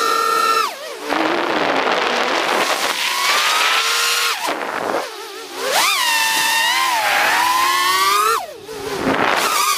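Brushless motors and propellers of a 3-inch FPV toothpick quadcopter (FPV Cycle TP3 on RCN Power 1204 5000kv motors) whining in flight, heard from the onboard camera. The pitch rises and falls with throttle, and the whine drops away briefly three times: about a second in, near the middle and near the end. The quad is flying heavy with a camera and a fat 3s battery.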